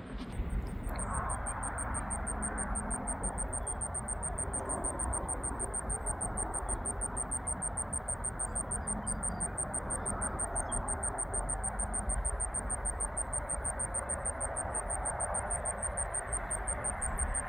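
Insects chirping in a rapid, even, high-pitched pulse, over a steady low rumble.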